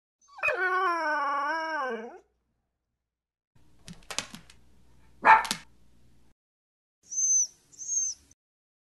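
Puppy sounds: a long, wavering whining howl starting about half a second in, then a few short sharp yips, the loudest a little after five seconds. Near the end come two short high-pitched blips.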